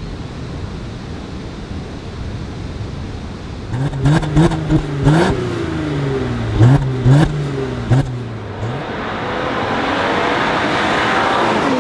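Mercedes-Benz E 400 Cabriolet's 3.0-litre turbocharged V6 revving through several gear changes, its pitch climbing and dropping repeatedly over about five seconds, with short sharp cracks at the changes. Near the end a swelling hiss of tyre and wind noise builds.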